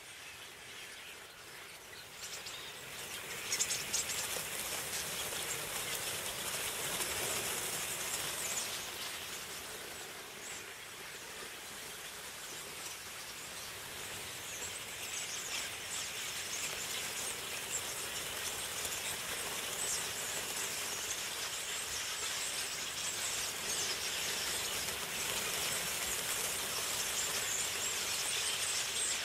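A huge murmuration of common starlings passing overhead: a dense rushing hiss of countless wings and massed bird chatter that swells about three seconds in and stays up.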